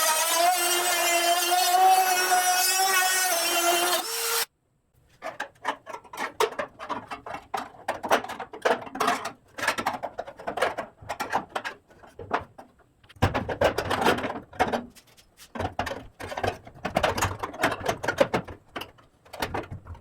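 A high-speed power cutting tool whines at a steady high pitch that wavers slightly as it cuts the hood hinge mount's sheet metal, then stops abruptly about four seconds in. After a short silence come irregular clicks, knocks and scrapes of metal being handled.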